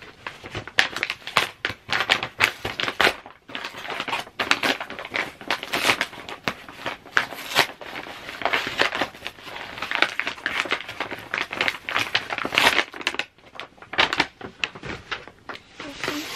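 Brown paper mailing bag crinkling and rustling as it is torn open and handled by hand: a dense, irregular run of sharp paper crackles with brief lulls about three seconds in and again about thirteen seconds in.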